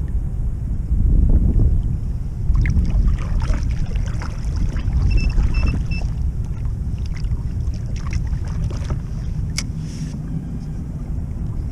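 Strong wind rumbling on the microphone of a drifting kayak, with water splashing and slapping against the hull for several seconds in the middle. A quick run of four short high beeps comes about five seconds in, and a single sharp click follows near the end.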